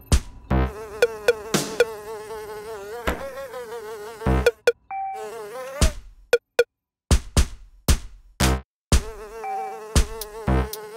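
Cartoon sound effects: a wavering, buzzing electronic tone, broken by sharp clicks and a few short beeps, with a stretch of clicks alone in the middle.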